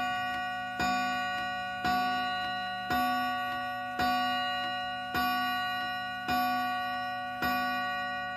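Lindin 31-day pendulum wall clock striking eight o'clock: one ringing note of the same pitch struck about once a second, each stroke fading slowly as the next comes.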